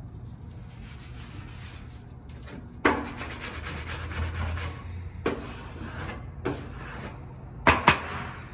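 A few rasping rubbing strokes across the painted quarter panel, then two sharp knocks near the end, over a low steady hum.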